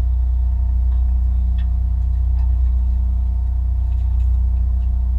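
Fishing boat's engine running, a steady low drone with a constant hum over it and a few faint clicks.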